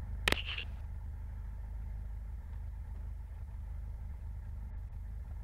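Cessna 172's piston engine idling steadily, heard as a low hum through the headset intercom, with a brief vocal sound about a third of a second in.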